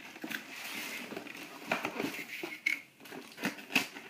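Cardboard toy box with a clear plastic window being handled: rustling and crinkling, with a few sharp knocks in the second half.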